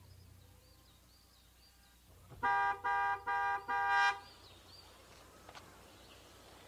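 Car horn honked four times in quick succession, each blast short and at one steady pitch, about a second and a half in all.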